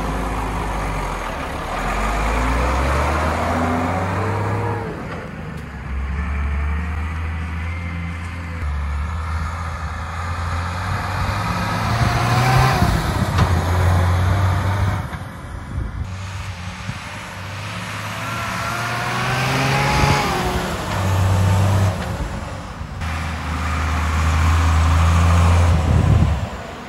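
Mercedes-Benz Unimog U1550L's six-cylinder turbodiesel engine pulling away and accelerating. Its note climbs and drops back several times as it shifts up through the gears, with a rising whine during the pulls.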